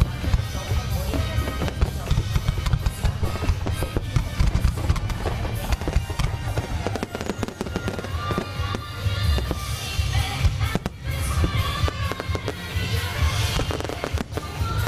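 Fireworks display: a dense, continuous barrage of aerial shell bursts and crackle, with music playing along underneath.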